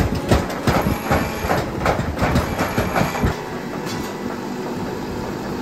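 Steel hammer head ground against the spinning abrasive wheel of a pedestal grinder: a rough, irregular scraping. About three and a half seconds in the steel comes off the wheel and the grinder runs on steadily without load.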